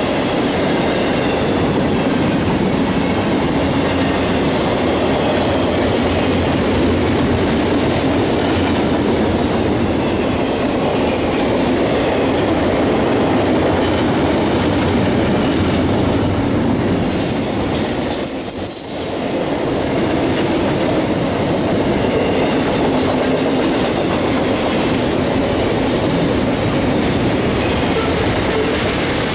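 Double-stack intermodal well cars of a freight train rolling past: a steady rumble and clatter of steel wheels on the rails. A brief high squeal comes a little past halfway, followed by a short lull.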